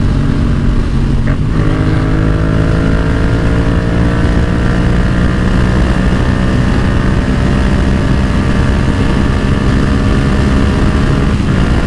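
Yamaha XSR700's 689 cc parallel-twin engine, fitted with a Yoshimura exhaust, running hard under acceleration: a short break about a second in, as at a gear change, then the pitch climbs slowly through a long gear until another short break near the end.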